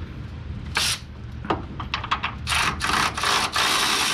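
Hand wrench working a bolt under the car: a sharp scrape and a few clicks, then about two seconds of rasping back-and-forth strokes in short spells.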